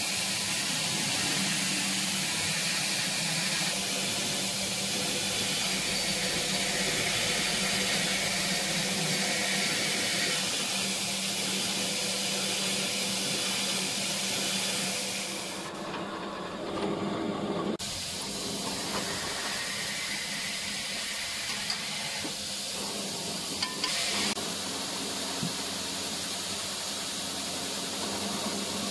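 Belt grinder running with a 440C stainless steel knife blade pressed against its abrasive belt: a steady hissing grind over a steady motor hum. About halfway through the grinding drops away, and a quieter running sound with a few light clicks follows.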